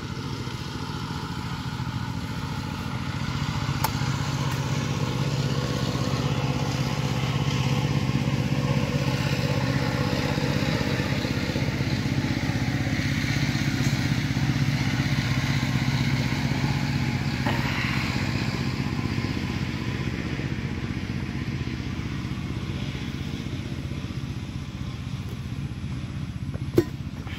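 An engine running steadily through the whole stretch, growing louder over the first several seconds and easing off again toward the end. A single sharp knock sounds near the end.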